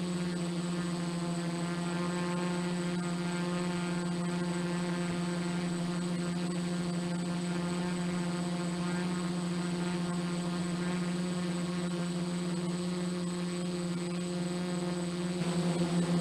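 F450 quadcopter's motors and propellers running steadily while it hovers, a buzzing hum with a firm pitch. About a second before the end the sound starts to pulse rapidly as the craft turns.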